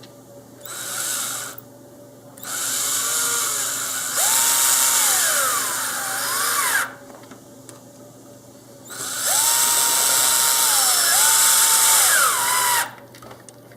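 An electric drill-driver runs three times as it drives the wing-mount screws: a short burst, then two longer runs. Each time the motor whine rises, holds steady and falls away as the trigger is eased.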